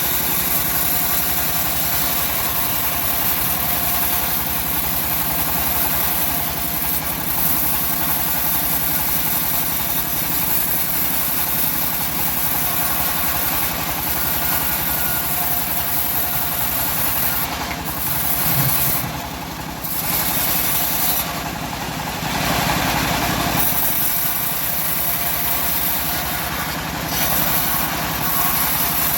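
Engine-driven home-built bandsaw mill running steadily while sawing teak, with a couple of brief dips in level about two-thirds of the way through.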